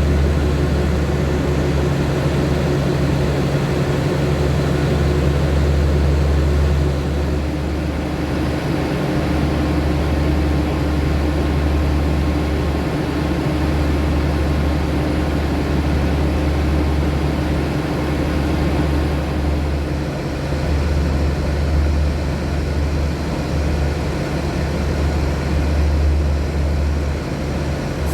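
Diesel locomotive engine running steadily at idle: a deep, even hum with a few fixed tones, which shift slightly about seven seconds in.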